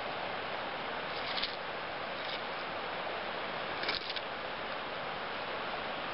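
Steady outdoor hiss with two short crinkly rustles, about a second in and again around four seconds in, as a steelhead is handled in a mesh landing net on snow.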